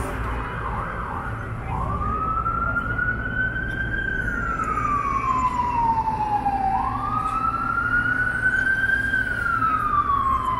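Emergency vehicle siren in a slow wail, its pitch climbing quickly and then sliding slowly back down, about every five seconds. It starts about two seconds in, over the steady rumble of street traffic.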